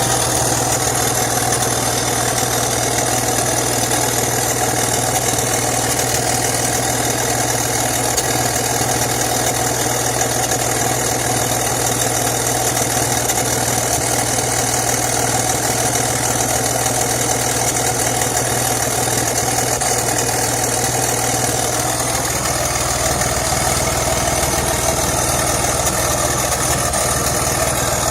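2004 BMW X3 3.0i's M54 inline-six idling steadily, with an exhaust leak somewhere in the system that the owner has not yet located. The low rumble grows a little fuller about three-quarters of the way through.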